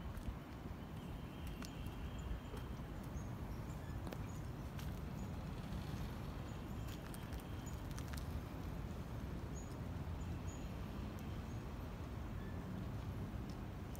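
Footsteps through a garden over a low steady rumble, with scattered light clicks and faint short bird chirps now and then.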